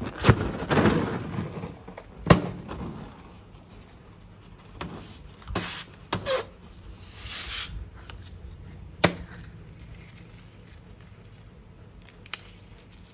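Handling noises from slime-making with plastic piping bags and containers. A handful of sharp taps come a few seconds apart, between short stretches of rustling, and it is busiest near the start.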